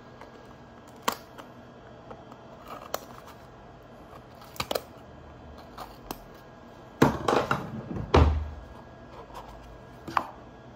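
A small cardboard jewellery box being handled and opened by hand: scattered light clicks and taps, with two short bursts of rustling and scraping about seven and eight seconds in, the second ending in a dull thump.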